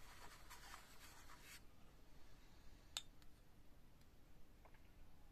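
Near silence with faint handling noises: soft scratchy rubbing for the first second and a half, then a single sharp click about three seconds in and a couple of faint ticks near the end.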